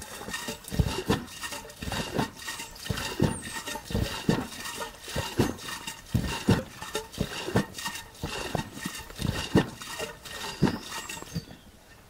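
Cream sloshing and knocking inside a rocked butter churn as butter is churned, in an uneven rhythm of about two strokes a second that stops shortly before the end.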